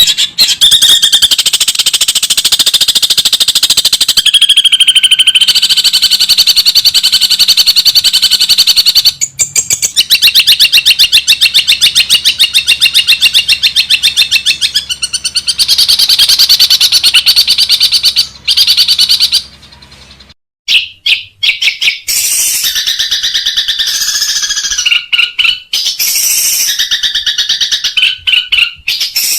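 Long-tailed shrike (cendet) singing a loud, fast chattering song of rapid repeated sharp notes. It mixes in sparrow-like chatter, and there are a few short breaks between phrases.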